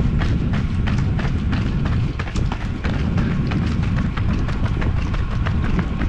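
Running footsteps on a wet paved path: a quick, even patter of several steps a second from two runners in stride. A heavy rumble of wind on the microphone runs underneath.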